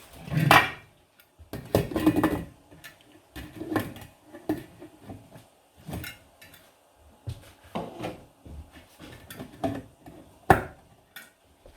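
Pots, pans and utensils being handled in a kitchen: irregular clanks, knocks and clinks, with the loudest about half a second in, around two seconds in and near the end.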